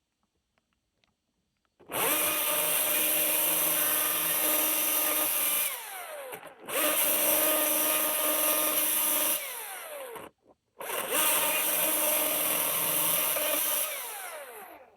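Husqvarna 540i XP battery-electric chainsaw triggered three times, each time running at a steady high speed for a few seconds. On each release of the trigger the motor and chain wind down with a falling whine.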